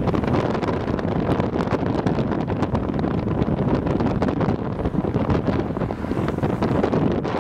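Wind buffeting the microphone of a camera held toward the side of a moving car, over road noise: a steady, rough rush full of small crackling pops.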